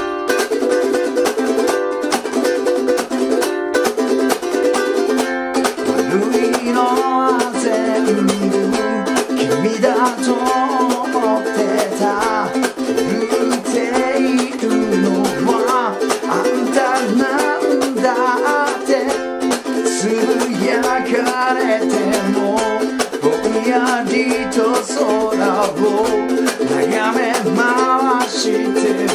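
Ukulele strummed in a fast sixteenth-note chopped rhythm, the muted 'cha' stroke, first on a G7 chord and then moving between F and G7. A man sings in Japanese over it from about six seconds in.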